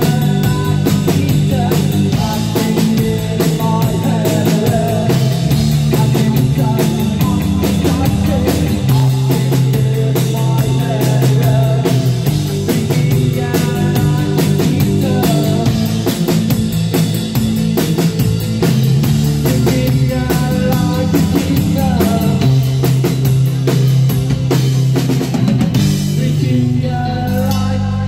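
Live rock band playing: a steady drum beat with cymbals, electric guitar and a male lead vocal. About two seconds before the end the drumming stops and a held chord rings on.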